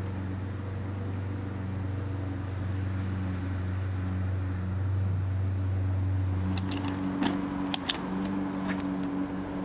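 A steady low mechanical hum whose deepest part drops away about seven seconds in. Then a quick run of sharp metallic clicks as the clasps of a leather school satchel are opened.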